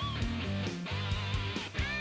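Background music with electric guitar: a sustained, wavering lead note over bass.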